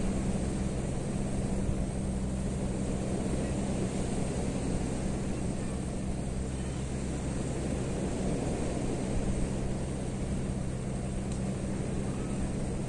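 A motor running steadily: an even low-pitched drone with a noisy rumble over it.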